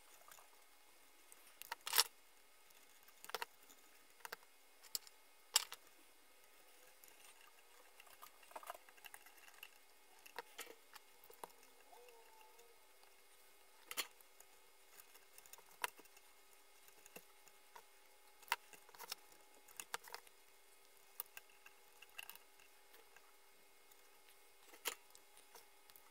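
Sparse small clicks and taps of hand tools and component leads being handled while soldering inside a tube-equipment chassis, with a faint steady tone coming in about halfway through.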